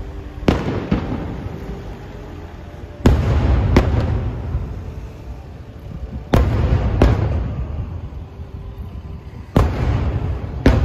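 Aerial firework shells bursting overhead: sharp bangs in pairs about every three seconds, each pair followed by a low rumble that trails off.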